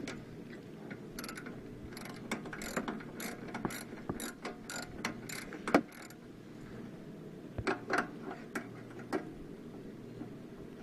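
Socket ratchet clicking in short runs while loosening a carburetor mounting bolt, with one sharper click partway through.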